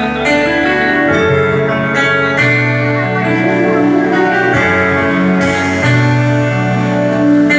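Live gospel band music: the keyboard plays an instrumental introduction of held chords over bass notes that change every second or two.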